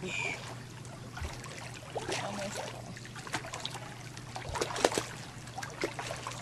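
Swimming-pool water lapping and splashing lightly around people moving in it, with irregular small splashes and drips, the sharpest a few splashes about three-quarters of the way through. A steady low hum runs underneath.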